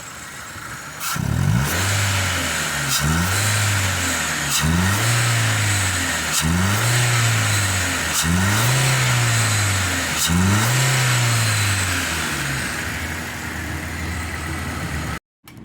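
Dongfeng Glory's engine revved in six quick throttle blips, each rising and falling in pitch, about one every two seconds, then running steadily until it cuts off suddenly near the end. The engine idles roughly and misfires, which the mechanic traces to compression leaking past a poorly sealing exhaust valve.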